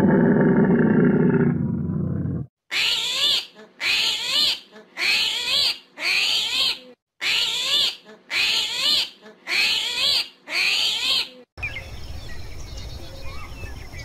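A camel's deep, groaning moan that stops about two and a half seconds in. Then a run of eight short, high calls that rise and fall in pitch, about one a second, followed by a faint steady outdoor hiss.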